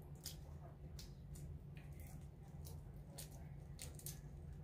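Boiled shrimp being peeled by hand: faint, irregular crackling clicks of the shell breaking and pulling away, over a low steady hum.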